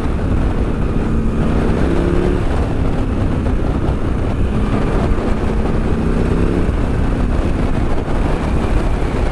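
KTM 890 SMT's parallel-twin engine running under way through a Vandemon titanium exhaust, over heavy wind noise on the microphone. The engine note comes through most clearly about two seconds in and again between about five and seven seconds.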